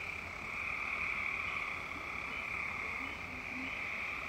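A dense chorus of many frogs calling at once, a steady shrill din that runs on without a break.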